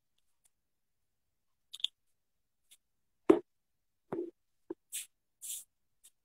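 Handling noise on a phone's microphone: a few separate knocks and rustles as the phone and clothing are moved, the loudest a dull knock about three seconds in, with dead silence between them.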